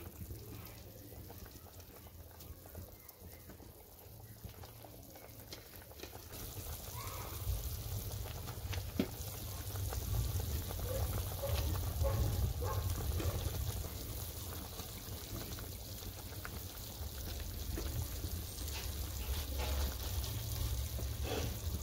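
Broth simmering and bubbling in a steel wok as vegetables are dropped in, with scattered soft clicks and plops over a low steady rumble; a steady hiss grows about six seconds in.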